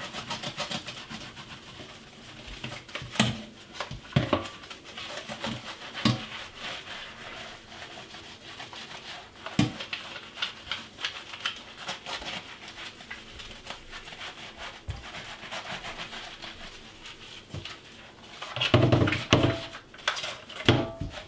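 Scrubbing a Commodore 16 part with washing-up liquid over a steel kitchen sink: a steady wet rubbing with scattered light knocks, and a louder burst of knocking and handling noise about 19 seconds in.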